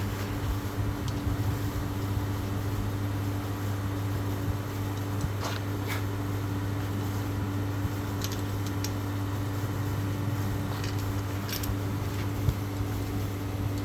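A steady low mechanical hum with a few faint clicks scattered through it.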